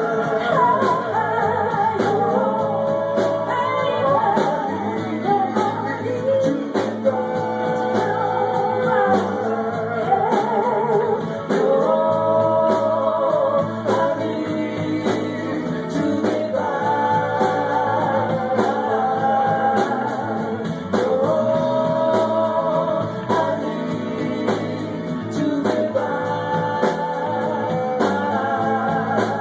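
Live band playing a song, a sung lead vocal over a steady drum beat.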